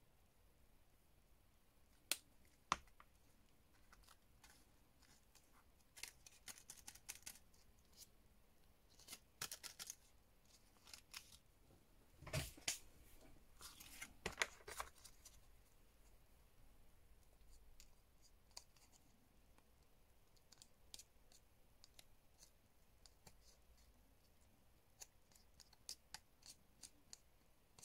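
Faint, scattered handling sounds of a glitter-paper craft flower being worked on: sharp clicks and short papery rustles, with the loudest, a knock, about twelve seconds in.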